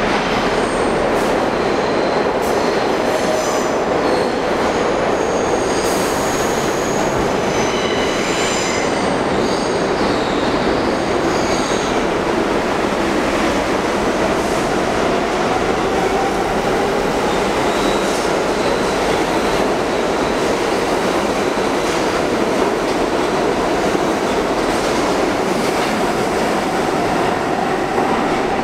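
Bombardier R62A subway train pulling out of an underground station: high wheel squeal and a brief hiss early on, then a loud steady rumble of wheels on rail with a motor whine that climbs in pitch as the train speeds up. Near the end a rising tone comes in as the next train approaches.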